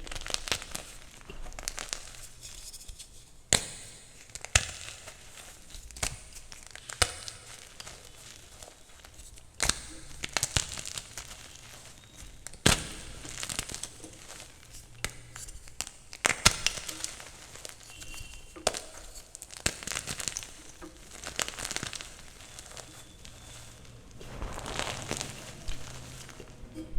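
Chalk being crumbled and crushed: irregular crunching with sharp snaps, a handful of them much louder than the rest.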